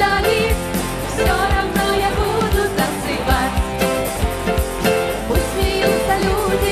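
Upbeat worship song: women's voices singing in Russian over a band with a drum kit keeping a steady beat.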